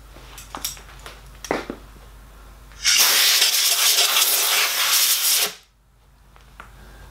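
A few light clicks and knocks, then a loud spraying hiss lasting about two and a half seconds that cuts off suddenly.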